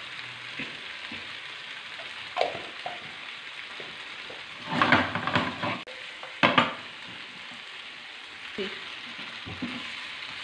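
Chicken pieces sizzling steadily in hot oil in a frying pan. About halfway through, the pan is shaken and tossed, giving two loud bouts of pieces clattering and sliding in the pan, and near the end a wooden spatula scrapes through them.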